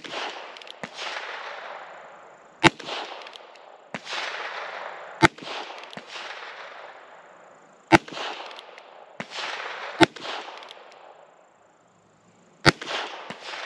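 Heritage Rough Rider .22 LR single-action revolver firing Armscor 36-grain high-velocity hollow points: a sharp shot right at the start, then five more about every two and a half seconds, each trailing off in a long echo. Every round fires and sounds good, with no weak or failed rounds.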